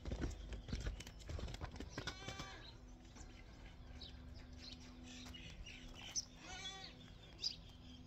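Faint, distant bleating of a goat or sheep, two wavering calls about four seconds apart, over a faint steady hum.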